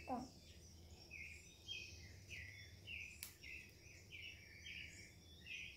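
Faint bird chirping: short high chirps repeated about twice a second over a low hum. Right at the start there is a brief falling vocal sound, and a single click comes about three seconds in.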